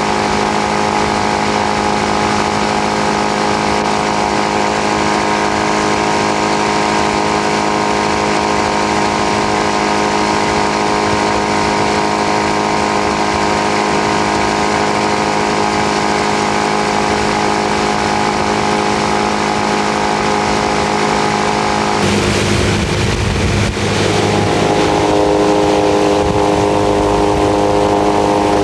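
Boat engine running at a steady speed. About 22 seconds in it changes speed, then settles into a new steady note a little louder than before.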